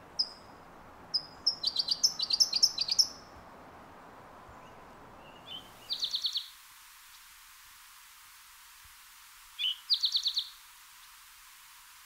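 Towhees calling and singing: a quick run of sharp chip notes in the first three seconds, with the California towhee, then two short trills, each after a single lead-in note, about six and ten seconds in, matching the spotted towhee's song.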